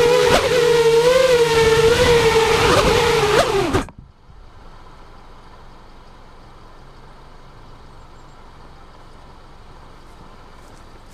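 FPV racing quadcopter's four 2205 2300 kV brushless motors and propellers spinning with a steady whine that wobbles slightly in pitch, then stopping abruptly about four seconds in. After that only a faint steady background hiss remains.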